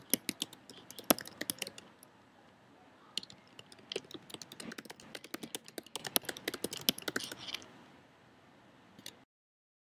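Rapid keyboard typing: uneven runs of sharp key clicks with a short pause between them, stopping about eight seconds in, with one last click a second later.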